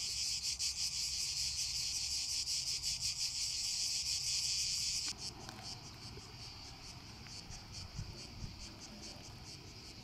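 Cicadas buzzing in a loud, shrill, rapidly pulsing drone; about five seconds in the sound drops to a fainter, thinner buzz that carries on.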